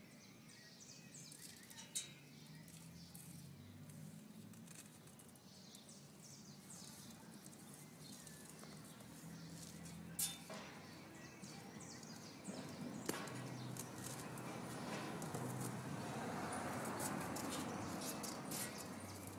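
Faint outdoor ambience with birds chirping in the background and a low hum, broken by three sharp knocks spread across the stretch.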